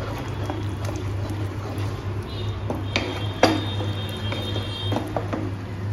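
Spatula stirring thick tomato-onion masala in a nonstick pan, with a few sharp clicks of the spatula against the pan about three and five seconds in, over a steady low hum.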